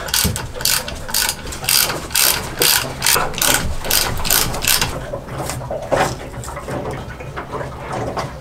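Ratchet wrench worked in quick back-and-forth strokes, about two to three clicking swings a second, undoing the fastenings of a boat engine's heat exchanger; the strokes weaken and thin out after about five seconds.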